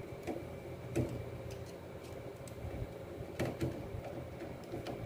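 A few light clicks and taps from hand work on a motor-control wiring panel, over a faint steady background hum.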